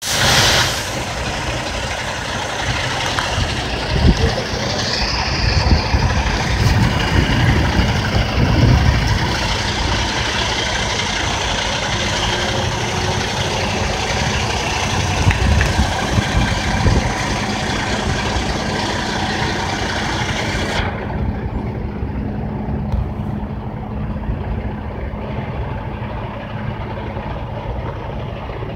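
Semi-truck diesel engine idling steadily, with a high hiss over it that cuts off suddenly about two-thirds of the way through.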